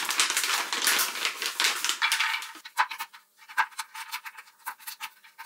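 Packaging crinkling as it is handled and opened: a dense stretch of crinkling for about two and a half seconds, then scattered lighter crackles and clicks.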